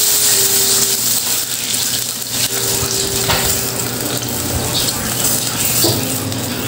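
Coconut milk poured from a plastic bag into hot oil in an aluminium wok, sizzling steadily.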